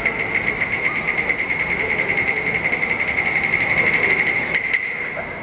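Cantonese opera stage percussion: a fast, even roll of about eight strokes a second on a small high-pitched ringing percussion instrument, which stops about five seconds in.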